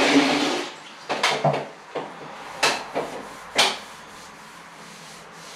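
Several sharp clacks and knocks, then a damp sponge wiping softly over freshly grouted wall tile. The grout is being washed off while it is still wet, before it hardens.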